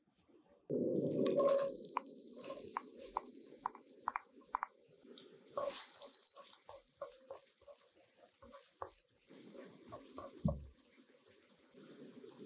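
Diced onion sizzling in hot cooking oil in a nonstick pan. A loud sizzle starts about a second in as the onion goes in, then settles into steady frying with many small pops and crackles while it is stirred with a wooden spatula. There is a low knock about ten seconds in.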